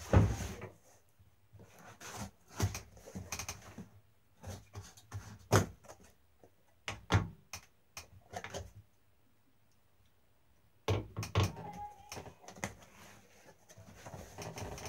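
Cardboard shipping box being opened by hand: irregular knocks, taps and scrapes of cardboard and packing tape, with the sound dropping out completely for about two seconds partway through.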